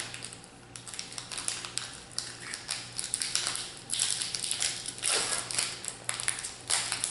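Foil wrapper of a Magic: The Gathering booster pack crinkling and tearing as it is pulled open by hand, in irregular crackles that grow louder past the middle.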